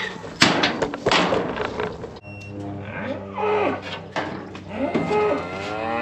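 A few sharp clanks from the steel alley and squeeze chute in the first two seconds, then cattle mooing: short moos, then one long moo starting near the end that rises and falls in pitch.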